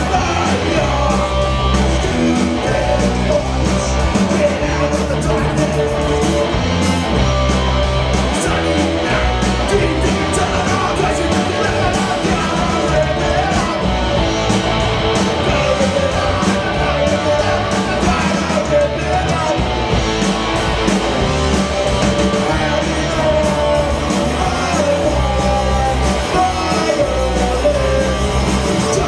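Live punk rock band playing a fast song: distorted electric guitars, bass and drums, loud and steady, with a singer's vocals over the band.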